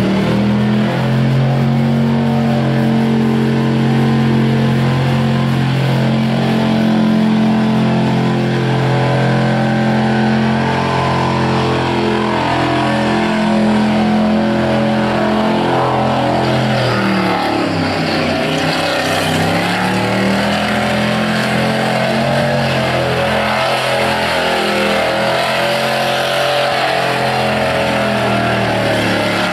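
V8-engined Toyota Corolla doing a burnout, its engine held at high, steady revs over the hiss of spinning tyres. About 17 seconds in the revs drop sharply, then rise and fall unevenly.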